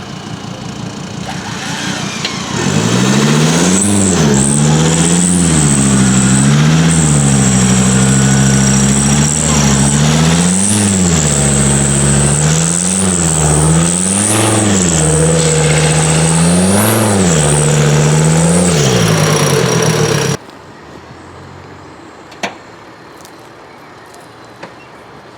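Off-road vehicle's engine revving up and down in about seven repeated surges, with a steady high whine over it. It cuts off suddenly near the end, leaving a much quieter steady sound.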